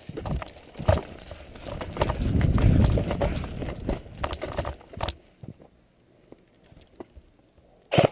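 Quick footsteps on soft forest ground with equipment rattling and a heavy low rumble of movement, for about five seconds. Then a few scattered light steps and ticks, and a sharp loud click near the end.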